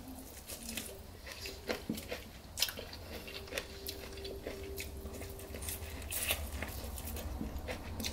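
Close-miked eating sounds from a seafood boil eaten by hand: chewing, lip smacks and sucking sauce off the fingers, heard as many short, scattered wet clicks.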